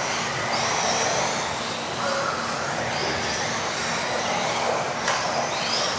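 Several electric RC off-road buggies racing together, their motors whining and gliding up and down in pitch as the drivers work the throttle, with one sharp knock about five seconds in.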